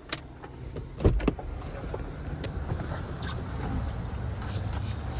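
Car sounds: a click, two heavy thumps about a second in, then the steady low rumble of the car running, with a few sharp clicks.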